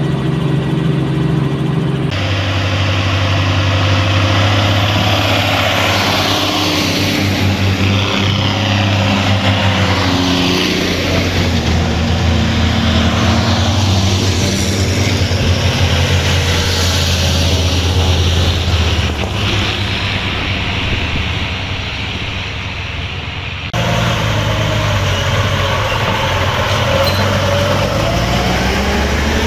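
Engines of vintage military vehicles running as a convoy of Jeeps, a Humvee and a six-wheel army truck drives along, their engine notes rising and falling.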